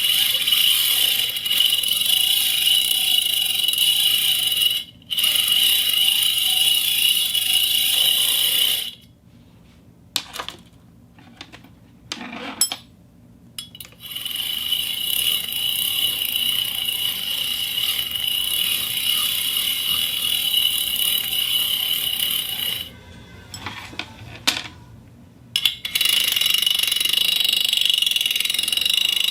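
Fishing reel's ratchet clicking in long continuous runs of several seconds, stopping twice for a few seconds with only a few scattered clicks before starting again.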